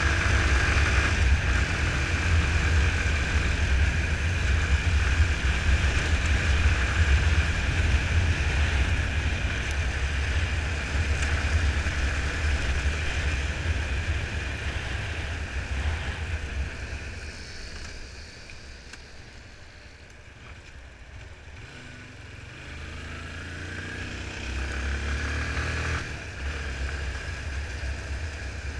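Yamaha Fazer 250's single-cylinder engine running under way, with wind and wet-road noise. About two-thirds of the way through the engine note drops and goes quieter for several seconds, then picks up again.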